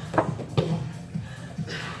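Footsteps and thumps on a training-room floor, with two sharp knocks in the first second.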